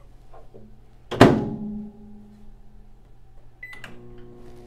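Microwave oven door slammed shut about a second in, with a loud bang and a short metallic ring that dies away. Near the end a keypad beep and a few button clicks, then the microwave starts running with a steady hum, heating soap base in 30-second intervals.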